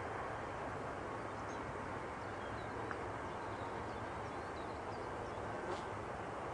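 Steady outdoor background noise with a few faint bird chirps.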